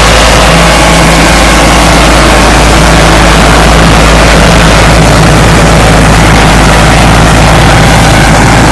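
Tractor engine running steadily under ploughing load, loud and unchanging.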